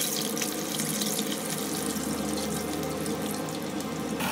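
Steady rushing, water-like noise with a fine crackle throughout, a sound effect laid under an animated logo; it changes character near the end.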